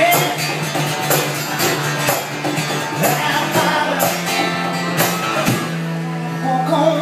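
Live blues: a man singing while strumming an acoustic guitar, with a Casio Privia digital piano and a box drum keeping a steady beat.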